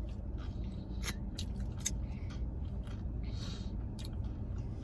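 Small eating and food-handling sounds in a car cabin: a few sharp clicks and a short rustle about three and a half seconds in, over a steady low hum.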